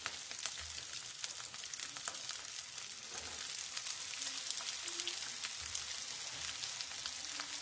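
Chicken pieces coated in beaten rice flakes sizzling and crackling in shallow oil in a nonstick frying pan. A second piece goes into the oil in the first few seconds, and the sizzle gets a little louder after it.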